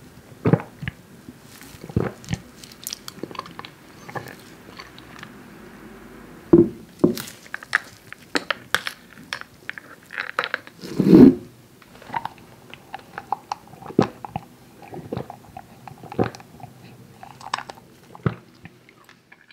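Close-up mouth sounds of someone tasting: irregular wet clicks and smacks, with a louder gulp about eleven seconds in.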